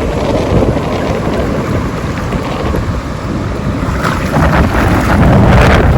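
Wind buffeting the microphone over the wash of sea water, a loud steady rumble that grows louder about two thirds of the way in.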